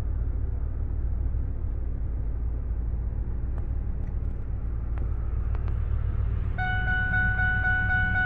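Supercharged V8 of a 2002 Ford F-150 Harley-Davidson edition idling, a low steady rumble heard from inside the cab. About six and a half seconds in, the dashboard chime starts dinging in a steady repeating pattern, the truck's warning for an unbuckled seatbelt.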